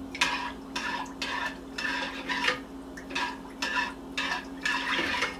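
Metal spoon stirring uncooked rice and water in a small stainless steel saucepan, scraping and clinking against the pot about twice a second.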